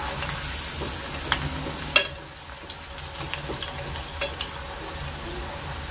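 Cabbage manchurian fritters deep-frying in hot oil, a steady sizzle with scattered light clicks of a spoon against the pot as they are turned. A sharper click comes about two seconds in, after which the sizzle is quieter.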